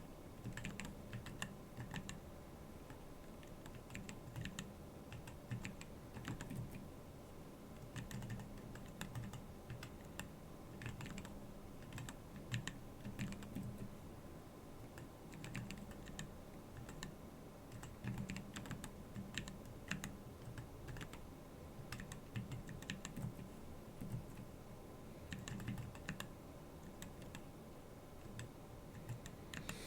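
Typing on a Keyball39 split mechanical keyboard: quick runs of key clicks in bursts, broken by short pauses.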